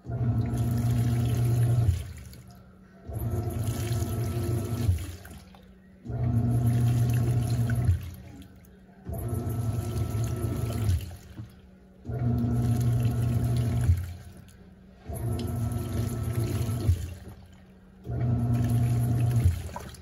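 Panasonic 14 kg top-loading washing machine agitating a soapy load: the pulsator motor hums and the water sloshes in strokes of about two seconds, each followed by a pause of about a second, seven strokes in all.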